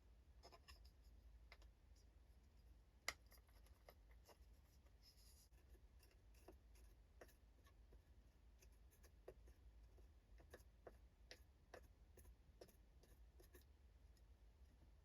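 Near silence with faint scattered clicks and taps of small parts being handled, one sharper click about three seconds in, over a faint low hum.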